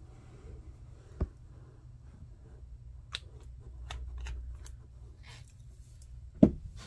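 Handling noise as a plastic nail-tip stand is picked up off a table: a knock about a second in, a few light clicks in the middle, and a sharper, louder knock near the end.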